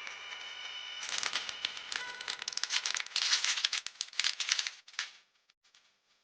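Packaging crinkling as it is handled: a dense run of sharp crackles for about four seconds that stops suddenly near the end.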